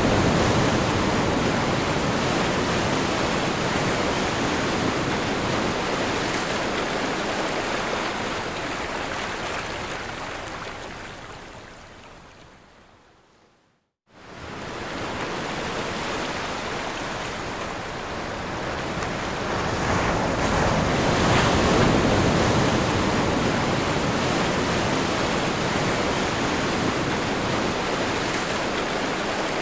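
Ocean surf breaking on a shore: a steady wash of waves that fades away to silence about thirteen seconds in, then comes back abruptly and swells again a few seconds later.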